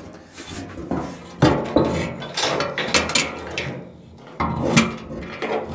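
Steel tailgate of a 1980 Dodge W200 stepside bed being wrestled into place on the bed, clanking, knocking and scraping against the metal in a string of irregular knocks.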